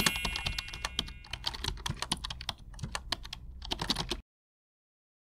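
Keyboard-typing sound effect: a quick, irregular run of clicks that stops abruptly about four seconds in. The fading ring of a chime lingers under the first clicks.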